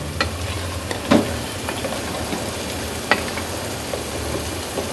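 Meat frying and sizzling in ghee on high heat in an aluminium pot, stirred with a wooden spatula, with a few knocks of the spatula against the pot, about a second and three seconds in.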